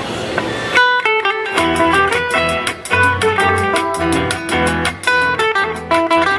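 Requinto guitar played through a street loudspeaker: a held chord rings out, then about a second in a quick run of picked single notes begins over lower bass notes.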